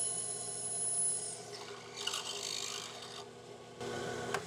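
Drill press boring a hole through a flat aluminum bar: a steady whine with a rasping cut, turning to a noisier scrape about a second and a half in, and a sharp click near the end.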